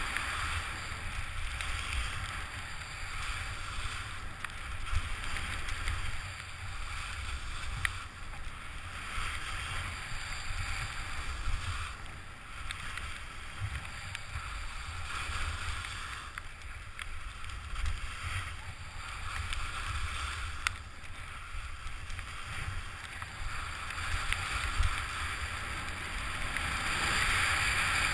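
Wind buffeting the microphone of a head-mounted camera during a downhill ski run, over the steady hiss of skis sliding on snow, which grows louder near the end.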